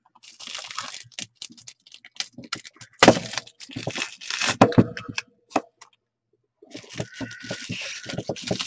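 Plastic wrapping crinkling, crackling and tearing as it is cut and pulled off a resin ball-jointed doll body, with many irregular sharp clicks. The loudest crackle comes about three seconds in, and it stops for a moment about two-thirds of the way through.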